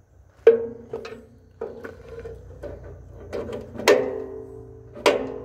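Steel parts of a snowblower jackshaft assembly knocking against the blower's sheet-steel housing as the shaft and its bearing flanges are fitted: about five sharp metallic clanks, each ringing on briefly, the two loudest in the second half.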